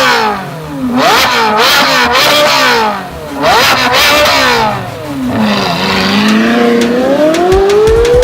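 Ferrari engine accelerating hard: the pitch climbs and drops sharply several times in quick succession as it shifts up through the gears, eases off twice, then makes one long steady rise in pitch near the end.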